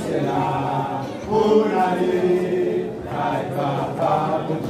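A men's gospel vocal group singing a hymn together, several male voices with some long held notes.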